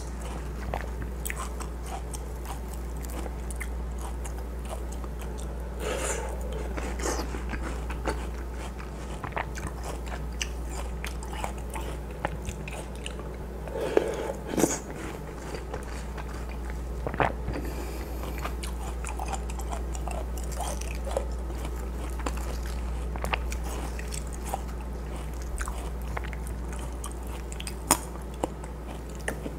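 Close-up mouth sounds of a person biting and chewing juicy watermelon chunks from watermelon punch: wet crunches, smacking and slurping, with a few louder bites scattered through. A steady low hum runs underneath.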